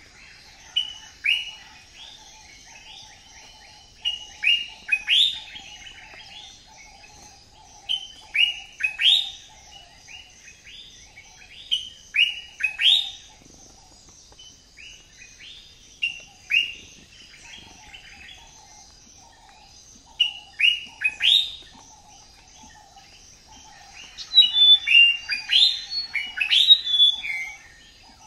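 Birds chirping: short phrases of quick falling whistled notes repeated about every four seconds, getting busier near the end. A steady, fainter chatter runs beneath.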